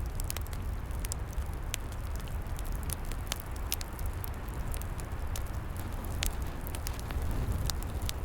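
Wood fire crackling, with many sharp irregular pops and snaps over a steady low rumble.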